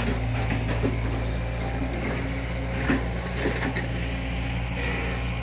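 Diesel engine of a Hitachi EX200 long-arm excavator running at a steady speed, a constant low hum, with a few faint knocks.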